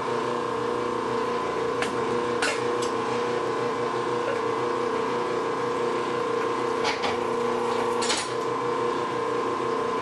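Bluedog BWS-60 electric wire stripping machine running, its 1.5 hp motor and gearbox humming steadily while a thick cable is fed through and slit by the blade. A few short sharp clicks sound over the hum.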